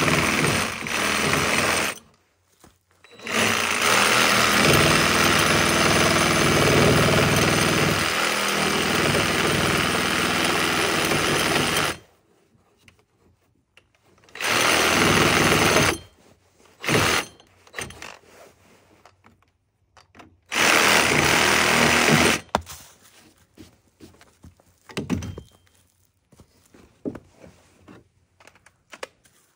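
A handheld power tool run in several bursts, the longest about eight seconds, with pauses between. After about 22 seconds there are only scattered short knocks and clicks.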